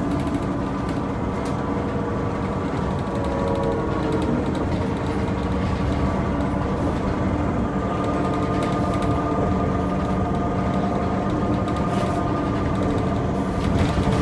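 City bus driving, heard from inside the passenger cabin: a steady engine hum and whine over low road rumble, with a few faint clicks and rattles.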